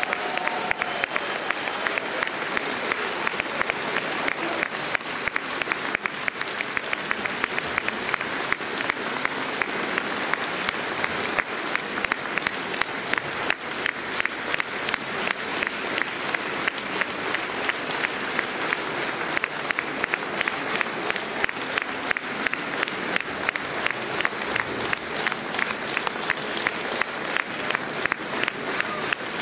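Theatre audience applauding, dense and steady, with an even pulse of louder claps running through it.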